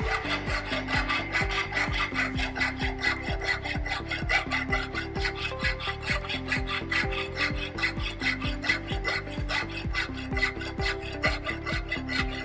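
Hand file rasping back and forth across the edge of a metal plate held in a bench vice, in steady repeated strokes, cutting a 45-degree bevel for a single-V butt weld joint.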